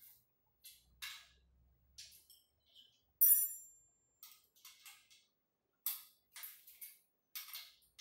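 Steel spanner clicking and scraping on a bolt and the treadmill's steel frame as the bolt is turned, a string of short irregular metal clicks. About three seconds in, a louder ringing metal clink of the tool striking steel.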